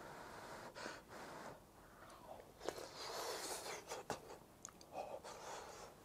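A person eating a hot spoonful of vegetable stew: faint blowing on the spoon to cool it, then soft chewing with small mouth clicks.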